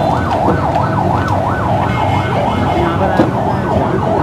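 A siren sounding in a rapid rising-and-falling yelp, over steady background noise.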